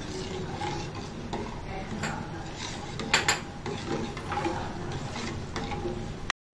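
A spoon stirring and scraping through thick tomato sauce in a stainless steel saucepan, with two sharp clinks about three seconds in.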